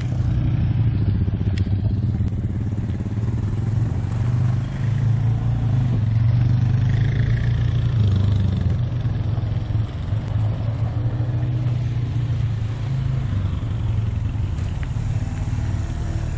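All-terrain vehicle (quad bike) engine running at low speed, a steady low drone that rises and falls slightly in pitch.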